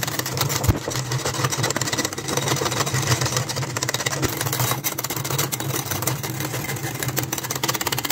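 Hand beater whipping coffee, sugar and hot water in a glass bowl, its wires clicking rapidly and evenly against the glass. This is the mixture being beaten into a thick, creamy whipped-coffee foam.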